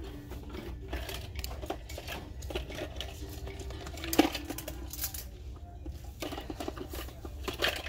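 Close handling noise: small objects clicking and clattering with rustling against the microphone, a sharper knock about four seconds in and a flurry of clatter near the end.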